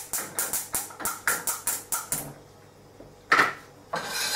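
Gas stove burner's spark igniter clicking rapidly, about four clicks a second, for around two seconds as the burner is lit. Near the end a frying pan clanks twice against the burner grate, the second with a brief metallic ring.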